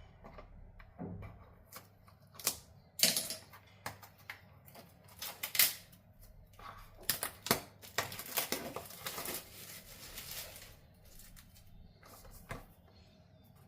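A wireless mic kit's box, packaging and plastic parts being handled during unboxing: irregular clicks, taps and rustles, loudest about three and five and a half seconds in.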